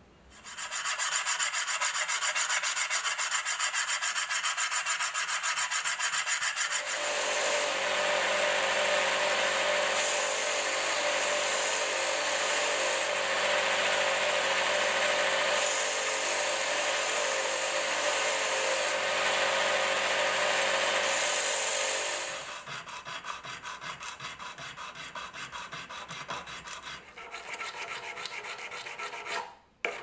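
Rapid back-and-forth rubbing strokes at first, then an electric bench belt sander running steadily for about fifteen seconds. After the sander stops, quieter rhythmic hand sanding strokes with a sanding block follow.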